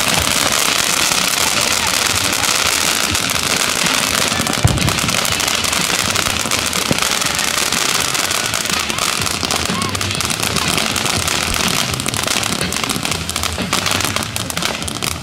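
Ground fountain firework erupting: a steady, loud hiss of spraying sparks peppered with crackles, easing slightly near the end.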